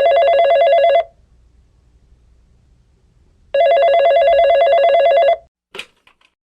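Telephone ringing: two warbling rings of just under two seconds each, about two and a half seconds apart, then a short click near the end.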